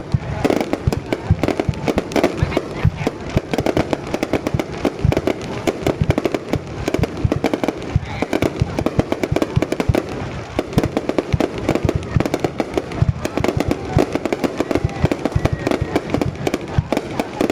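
Fireworks display going off: a dense, continuous barrage of bangs and crackles, several a second without a break.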